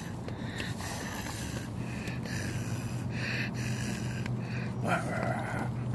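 A dog snuffling and snorting in short breathy rushes close to the microphone while its face is rubbed, with a louder, fuller snort about five seconds in.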